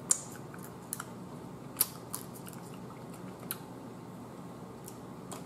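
Close-up eating sounds: sucking and chewing on a piece of boiled blue crab, with about five sharp clicks and smacks from lips and shell spread over a few seconds.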